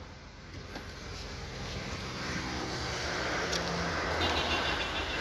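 Car's 1200 cc petrol engine idling steadily. The outdoor noise rises as the driver's door is opened.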